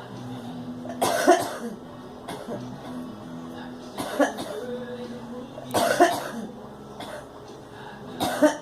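A girl coughing in four separate short bouts, one every two to three seconds, some bouts holding two coughs in quick succession.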